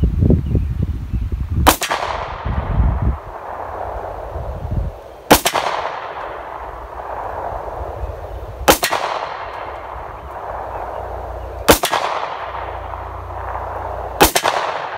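Makarov pistol firing 9×18mm rounds: five single shots about three seconds apart. Each shot is followed by an echo that trails off over a second or two.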